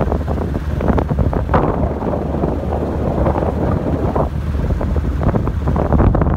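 Wind buffeting the microphone in uneven gusts from a moving car, over the low running of the car's engine and tyres.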